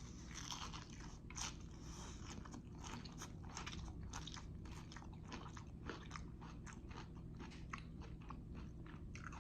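Close-miked chewing of jalapeño poppers: a steady run of small, crisp crunching clicks, several a second.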